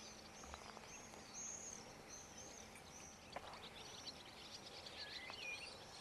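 Faint birdsong: small birds chirping and twittering in quick, high notes, with a few lower warbled phrases.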